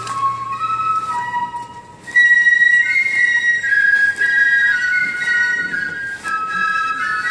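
Fifes of a military fife-and-drum corps playing a march tune in two-part harmony, with occasional drum strokes. The tune drops away briefly just before two seconds in, then comes back louder and higher.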